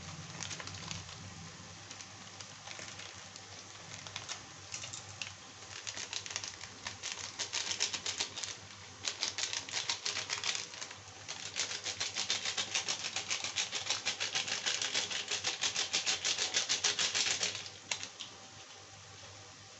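Fast, even tapping on a packet of masala powder to shake the spice out over frying onions in a steel kadhai, several taps a second, growing stronger and then stopping shortly before the end, over a low sizzle from the pan.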